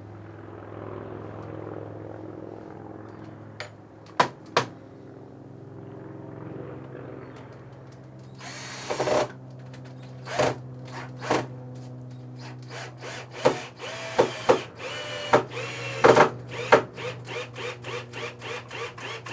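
Cordless drill-driver driving screws into a wooden board. The motor runs steadily for the first several seconds, with two sharp clicks partway through. It then runs in many short bursts, spinning up briefly each time.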